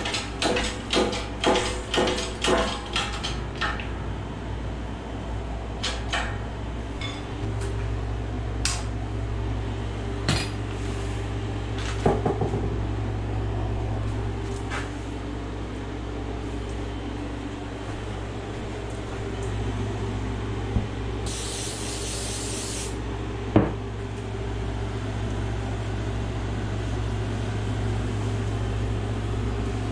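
Hand tools on metal parts during a rear differential gear install: a quick run of hammer blows on metal, about three a second with a ringing after each, at the start, then scattered metallic clanks and knocks of tools and parts. A short spray hiss comes about two-thirds through, over a steady low hum.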